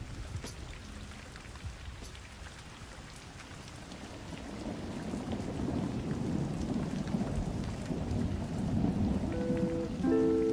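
Rain falling steadily, with a low rumble of thunder that swells through the second half. Musical notes come back in near the end.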